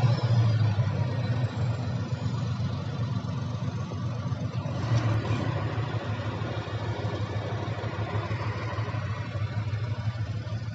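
An engine running steadily with a low hum, slowly getting quieter.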